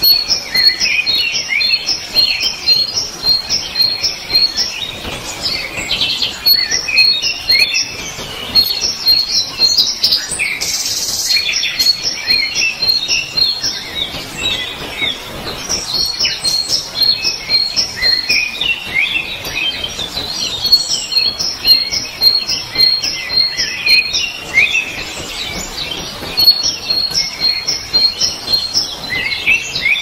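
Small songbirds chirping and twittering: runs of short high notes repeated about three times a second, with other chirps in between, pausing briefly every few seconds.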